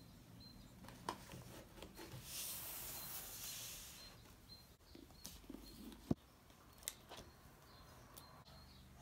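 Objects being handled on a desk: soft taps and knocks as a rope-wrapped box and books are moved and set down, with a sliding, rustling scrape around two to four seconds in and one sharper knock about six seconds in. A faint high chirp repeats about once a second in the background.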